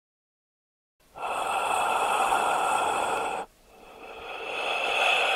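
A man breathing close up as he smokes a cigarette: one long breath starting about a second in, then after a short break a second breath that swells louder as he blows out smoke.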